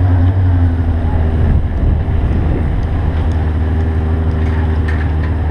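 Low, steady engine drone from the vehicle carrying the camera as it rolls at low speed. The drone wavers and shifts in pitch about two seconds in, then settles again.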